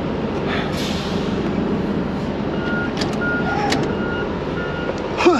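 A vehicle's backup alarm beeping four times, evenly about half a second apart, in the second half, over a steady mechanical hum. Two sharp clicks come among the beeps.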